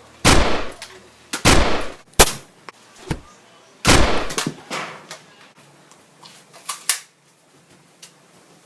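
Gunshot sound effects: a series of loud, sharp bangs, each dying away over about half a second. About five come in the first four seconds, then two lighter shots close together near the end.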